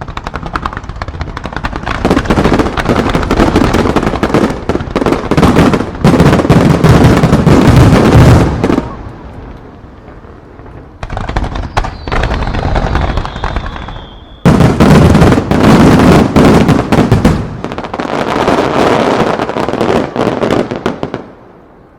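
Rapid-fire aerial fireworks barrage: a dense, continuous run of shell bursts and crackle. It eases off about nine seconds in, a falling whistle sounds around twelve seconds, then a sudden loud volley runs on until it stops just before the end.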